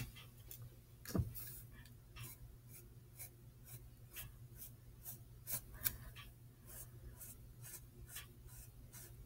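Pencil scratching on a sheet of paper in short, quick sketching strokes, with one low knock about a second in and a faint steady hum underneath.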